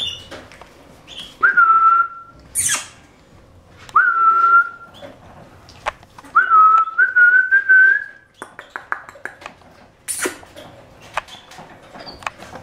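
A person whistling in short, steady notes: two single held notes, then a longer one that steps up in pitch a couple of times, with light clicks and scratches of puppies moving about and two brief rushes of noise.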